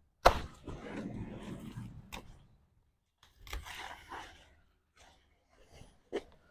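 Weeds being pulled up by hand: rustling and tearing of leaves, stems and roots, in two bursts. The first starts with a sharp snap and the second comes around the middle, with a few clicks near the end.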